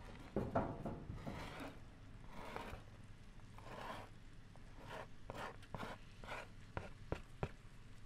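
Chopped onions sizzling in hot butter in a frying pan on a hob, the sizzle swelling in short hissing bursts. Scrapes and knocks from the pan and utensil come near the start, and a run of sharp clicks comes in the second half.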